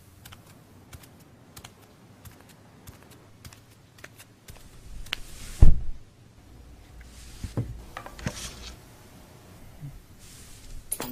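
Irregular light clicks and taps, with one much louder thump about five and a half seconds in.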